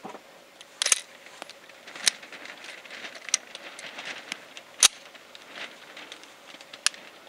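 Metallic clicks and clacks of a Roth-Steyr 1907 pistol being handled, its action worked by hand, with several separate clicks and the sharpest one about five seconds in.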